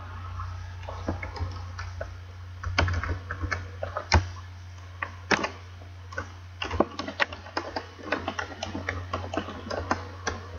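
Typing on a computer keyboard: irregular keystroke clicks in short runs with pauses between, over a steady low hum.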